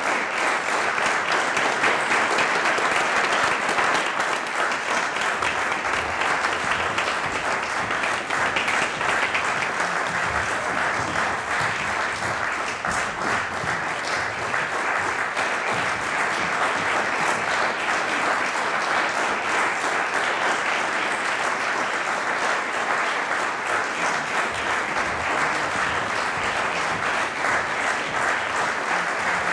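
Theatre audience applauding steadily, many hands clapping together without a break.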